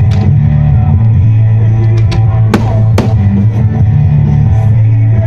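Loud rock music with drums and guitar played for a pyromusical fireworks show, with a few sharp cracks of fireworks going off over it, at the start and about two and a half and three seconds in.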